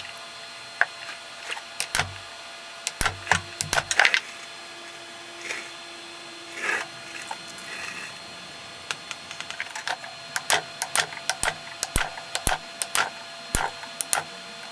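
Irregular sharp taps and knocks, some in quick clusters, over a faint steady hum.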